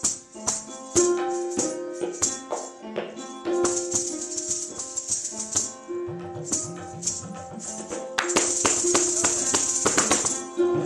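Kathak footwork: the dancer's stamping feet set the ankle bells (ghungroo) jingling in rapid rhythmic patterns, over tabla strokes and a held melody line. Around 6.5 to 7.5 s the bass drum bends in pitch. From about 8 s the bells run into a dense, very fast continuous jingle.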